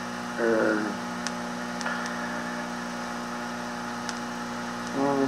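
Steady electrical hum in an old recording, with a short voiced hesitation sound from the lecturer about half a second in and a few faint ticks.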